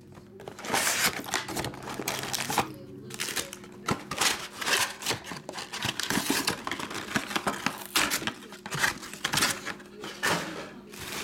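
Plastic wrapping and foil trading-card packs crinkling and rustling in irregular bursts as card boxes are unwrapped and the packs handled and stacked, over a faint steady low hum.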